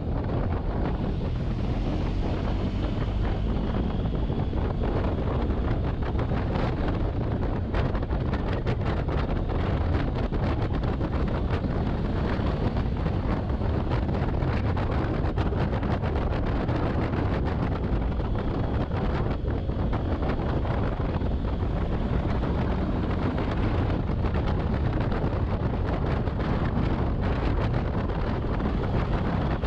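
Wind rushing over the microphone on a moving motorcycle at road speed, with the motorcycle's engine running underneath; the rush stays steady throughout.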